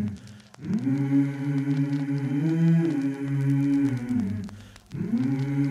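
Film score music: low, sustained pitched tones that slide from one pitch to the next, in slow swelling phrases broken by two short dips, about half a second in and near the end.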